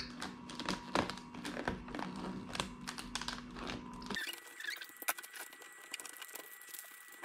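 Wrapping paper rustling and crinkling in many small, scratchy bursts as a gift box is wrapped, the paper folded and pressed down by hand.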